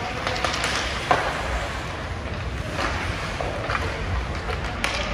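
Ice hockey play on the rink: a steady hiss of skates on the ice, broken by sharp clacks of sticks and puck. The loudest clack comes about a second in, and a few fainter ones follow.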